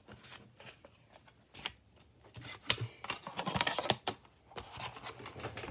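Screen-protector kit packaging and its small pieces being handled: irregular light clicks, taps and rustles, busiest around the middle.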